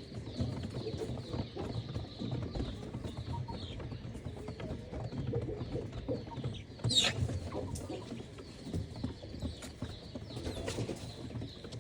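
A flock of chickens clucking and calling, with one loud, sharp squawk about seven seconds in, over a steady low rumble.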